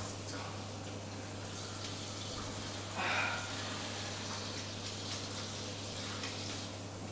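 Water running steadily in a tiled washroom, with a steady low hum beneath it and a brief louder noise about three seconds in.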